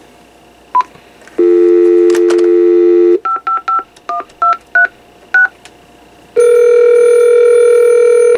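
AT&T 5655 base unit speakerphone going off-hook and dialing: a short key beep, then a dial tone for about two seconds, then about seven touch-tone digits dialed in quick succession. Near the end a steady ringback tone comes on for about two seconds as the call goes through.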